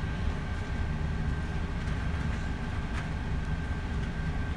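Steady low rumble with a faint steady high whine, and a single small click about three seconds in.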